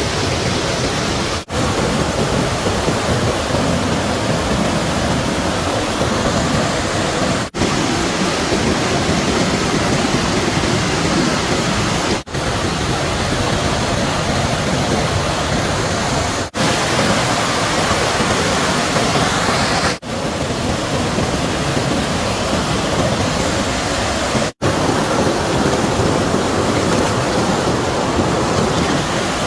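Rushing stream water, a loud, steady wash of noise. It drops out briefly about six times where clips are cut together.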